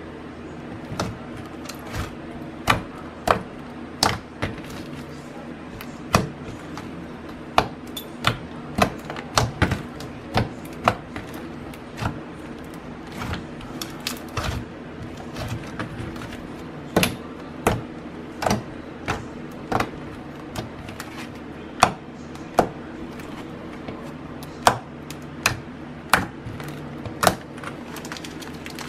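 Hand squishing and stretching a blue clear-glue slime, making irregular sharp sticky clicks and pops, about one or two a second, over a steady low hum.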